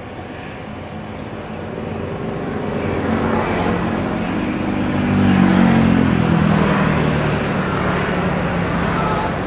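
Jet engines of a Boeing 737-500 rolling along the runway after touchdown, swelling to their loudest about halfway through and then easing a little. A low hum under the engine noise falls slightly in pitch.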